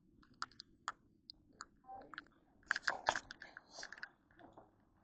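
Footsteps crunching on a dirt and gravel trail, an irregular run of short crunches and clicks, busiest about halfway through.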